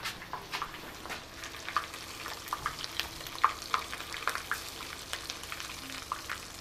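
Chicken pieces frying in a pan of oil at about 350 degrees: a steady sizzle with irregular crackles and pops.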